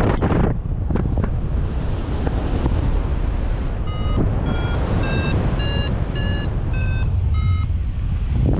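Wind rushing over the microphone in flight. From about four seconds in, a variometer (XC Tracer) beeps in short pitched pips about twice a second, its pitch rising over the first few then dipping a little: the climb tone that signals the paraglider is gaining height in lift.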